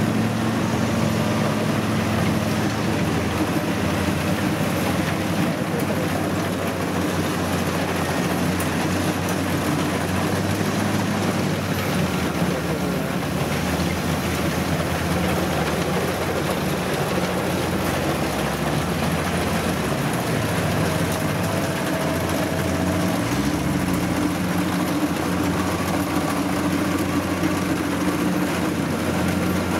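Kubota DC-70 rice combine harvester's diesel engine running steadily as the machine harvests rice.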